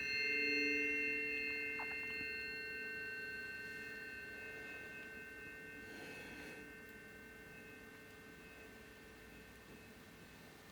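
Tuning forks ringing as several pure, steady tones that slowly fade away. A lower pair of tones comes in just after the start and dies out over the next few seconds.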